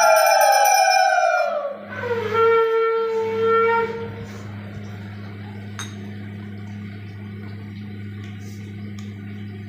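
Conch shell (shankha) blown in two long blasts. The first, already sounding, sags in pitch and dies away a little under two seconds in. A second, lower blast holds steady for about two seconds and stops about four seconds in.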